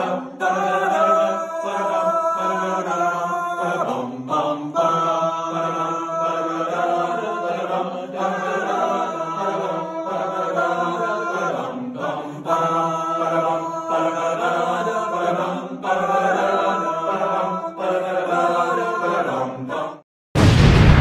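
Outro music with chanting, choir-like voices in repeating phrases of about four seconds. Near the end it breaks off for a moment and a loud booming hit comes in, dying away.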